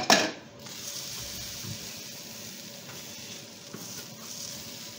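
A sharp clatter at the start, then a spinach tortilla sizzling steadily in a frying pan.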